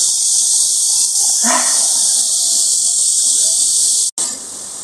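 Cicadas buzzing in a loud, steady high-pitched chorus, with a brief human voice sound about a second and a half in. Near the end the sound cuts out for an instant and the chorus returns quieter.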